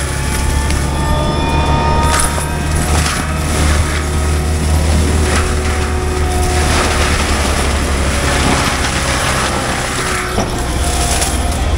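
Cat 299D3 XE compact track loader's diesel engine running under load, driving a Fecon forestry mulcher head that is shredding brush. There is a steady low drone, with uneven noisy surges as the head bites into the growth.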